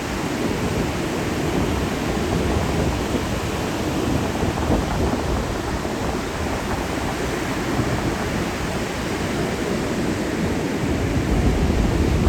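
Ocean surf breaking on a beach: a steady, dense rush of noise with a heavy low rumble and no let-up.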